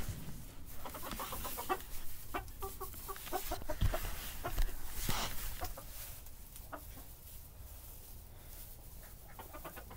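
Silkie chickens clucking, a scatter of short clucks that thins out over the last few seconds, with a low thump about four seconds in.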